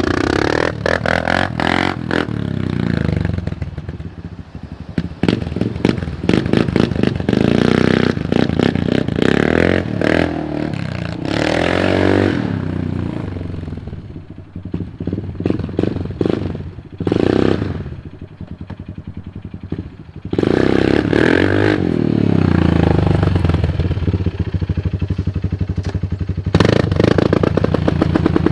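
Kawasaki Brute Force 300 ATV's single-cylinder four-stroke engine, fitted with a Dynojet stage 1 carburetor jet kit, revving up and down again and again as it is ridden hard. There is a quieter stretch in the middle, and many clattering knocks run throughout.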